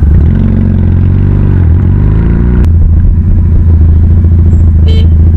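Cruiser-style motorcycle engine running loud and low, close to the rider's camera; its pitch dips and climbs with the throttle in the first couple of seconds, then it runs steadily after an abrupt change near three seconds.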